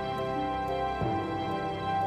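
Background music: soft sustained notes, the chord changing about a second in.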